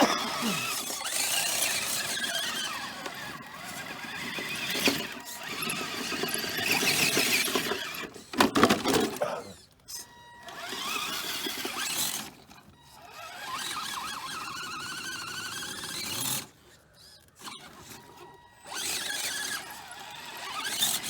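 RC crawler truck's electric motor and drivetrain whining in bursts as it is throttled, the pitch rising and falling with speed, with a few short pauses.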